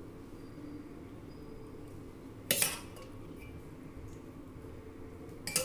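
Steel spoon clinking against stainless steel bowls while bhel is scooped from one bowl into another: two sharp metallic clinks, about two and a half seconds in and again near the end, with a little ringing after each.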